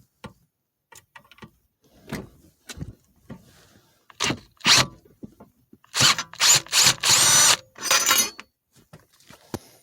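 Screws being worked out of a car stereo's side brackets with a Phillips driver: scattered clicks and knocks, then about six seconds in a couple of seconds of loud squeaking and rasping from the driver on the screws.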